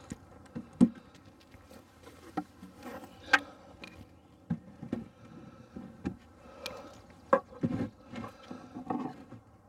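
Honey bees buzzing in a low steady hum, broken by several sharp knocks and scrapes of wooden hive boxes being set down and shifted into place.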